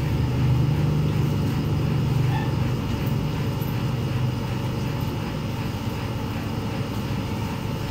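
A steady low engine drone that slowly fades.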